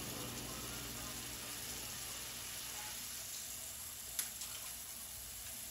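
Chopped onions, bell peppers and carrots sizzling steadily as they sauté in a pot on medium heat, with one light click about four seconds in.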